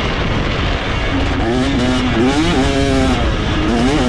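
2025 KTM 250SX two-stroke motocross engine running loud, its note rising and falling repeatedly as the throttle is worked from about a second in, after a rougher, less pitched stretch at the start.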